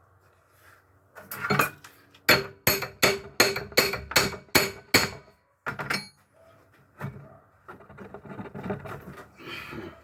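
Hammer blows on the metal parts of a Ford Pampa 4x4 gearbox being dismantled: a run of about nine quick strikes, roughly three a second, each with a short metallic ring, followed by quieter knocks and scraping of parts.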